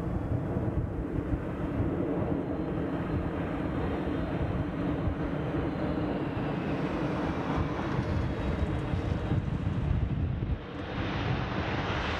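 Boeing 747-8 Freighter's four General Electric GEnx turbofans on landing, a steady jet rumble with a faint whine that slowly falls in pitch. Shortly before the end the sound dips briefly and comes back with more hiss.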